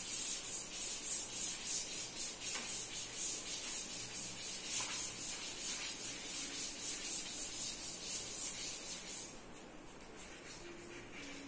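Cloth rubbed briskly over a chalk blackboard to erase it, in quick back-and-forth strokes of about two to three a second. The strokes stop about nine seconds in.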